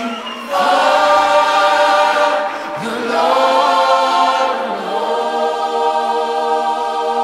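Background music of a choir singing long held chords, the chord changing a few times.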